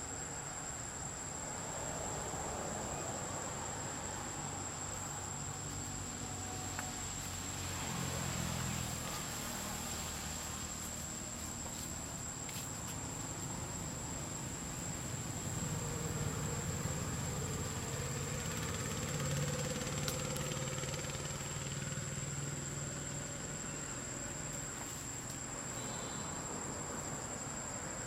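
Steady high-pitched insect drone from the forest. A low engine hum swells in twice, about a third of the way in and again past the middle.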